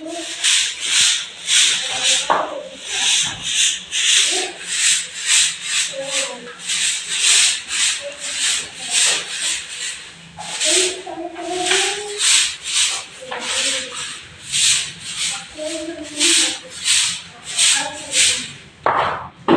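Short hand broom sweeping concrete stairs: brisk swishing strokes, about two a second, with dust scraped off the steps.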